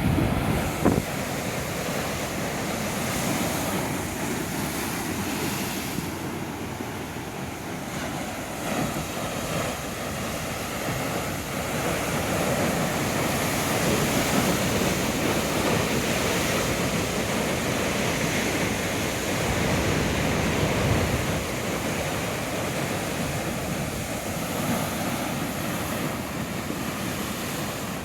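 Big ocean waves breaking in a continuous rush of surf that swells louder a few times, with wind noise on the microphone.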